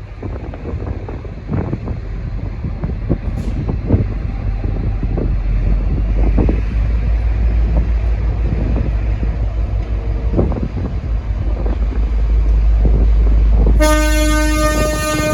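V/Line N class diesel locomotive departing, its EMD V12 two-stroke engine running with a deep rumble that grows louder, with scattered knocks. About a second and a half before the end, its Leslie RS5T multi-chime horn starts a loud, steady blast.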